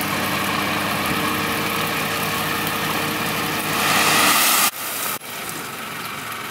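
Isuzu dump truck's diesel engine running steadily while the raised bed tips, then a louder rushing swell of crushed stone sliding out of the tailgate about four seconds in. The sound then drops suddenly to a quieter engine hum.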